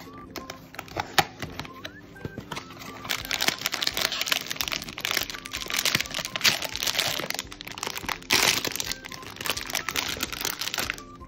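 Blind-box toy packaging being opened. A few light clicks of cardboard come first, then, from about three seconds in, continuous crinkling and rustling of the plastic and foil inner bags as they are pulled out and opened.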